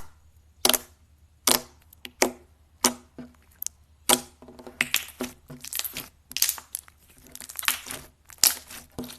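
Slime being squeezed and pressed, giving sharp pops and crackles: single pops roughly every three-quarters of a second at first, then denser crackling from about four seconds in.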